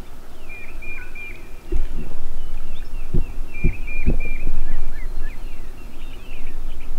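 Small songbirds singing, repeating short chirping notes. From about two seconds in, louder low thumps and rumble of movement close to the microphone.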